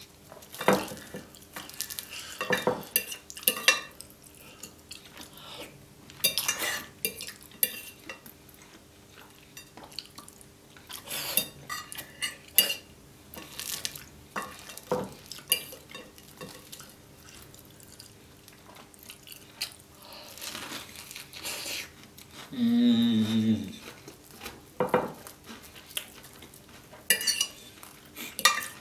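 Metal fork clinking and scraping against a ceramic plate in scattered short strokes, as the last of the carbonara sauce is gathered. A short voiced hum comes about three quarters of the way through and is the loudest sound.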